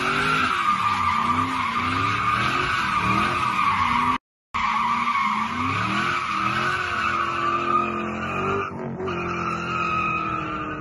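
Ford Mustang GT's V8 revving up and down about once a second while the rear tyres squeal in a burnout. The sound cuts out completely for a moment about four seconds in. Later the revs hold steadier and the tyre squeal fades near the end.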